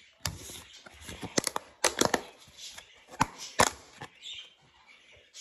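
Kitchen handling clatter: irregular sharp clicks and knocks of plastic food containers and a plate being handled as pieces of cantaloupe are put out. The loudest knocks come about two seconds in and again around three and a half seconds.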